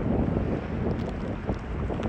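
Blizzard wind buffeting the microphone with a steady low rumble, over water churning along the hull of a passing lake freighter.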